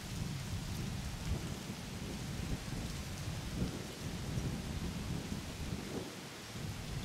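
Wind gusting across the microphone: an uneven low rumble with a fainter steady hiss above it.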